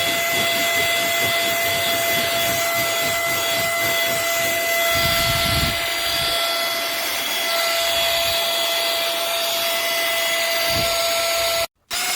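Small cordless handheld vacuum cleaner running, a steady motor whine over rushing air, with a deeper rumble for about a second around the middle. It cuts off abruptly near the end, comes back for a moment, then stops.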